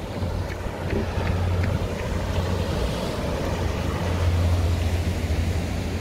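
Ocean surf breaking and washing over a rock shelf, with wind buffeting the microphone as a steady low rumble.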